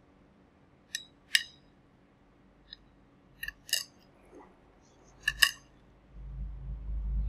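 Metal utensils clicking sharply against each other or the dish, mostly in quick pairs, about seven clicks in all. A low rumble swells from about six seconds in.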